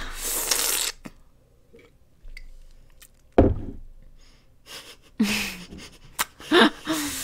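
A single sharp knock about three and a half seconds in, the loudest sound here. About a second of hissy noise comes before it, and short voice sounds follow near the end.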